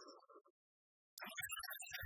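Background music fades out, breaks off into complete silence for about half a second, then starts again abruptly.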